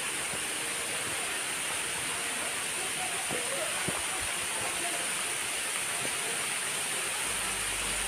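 Waterfall: the steady rushing hiss of water pouring down rock ledges into a pool.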